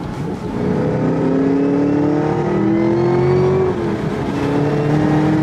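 Chevrolet Camaro ZL1's supercharged 6.2 L V8 with an AWE Touring cat-back exhaust, heard from inside the cabin, accelerating through the gears: the pitch climbs steadily, drops with an upshift a little under four seconds in, then climbs again.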